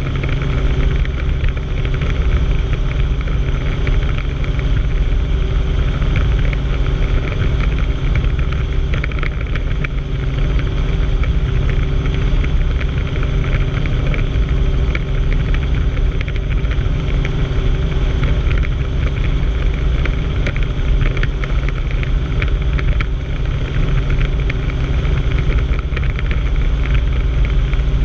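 Helicopter in steady forward flight: a loud, unchanging drone of rotor and turbine engine with a deep rumble and a rush of wind over the outside of the airframe.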